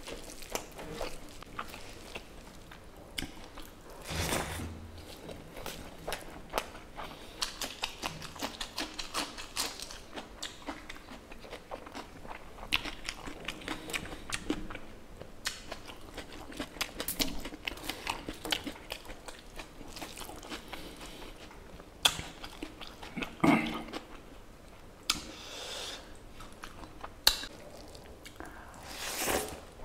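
Close-miked chewing and wet mouth sounds of a person eating pork curry and rice, with many small smacks and clicks and a few louder moments, one about four seconds in and several toward the end.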